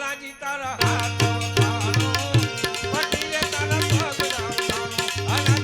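Gujarati devotional bhajan accompaniment: tabla keeping a steady rhythm under a melodic instrument carrying the tune, between sung lines.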